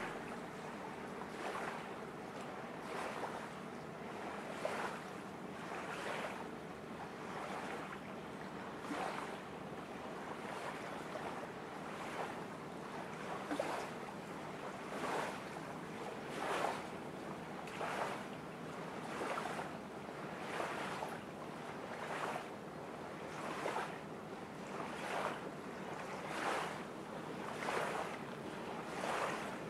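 Small waves washing onto a shore, one soft rush about every second and a half, over a steady low background noise.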